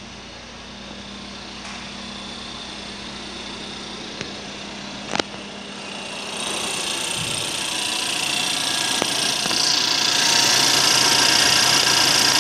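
LDV G10's 2.0-litre turbocharged four-cylinder engine (20L4E) idling steadily in an engine test, running good. It grows much louder from about six seconds in, with more high-pitched whir coming through near the end. A single sharp click about five seconds in.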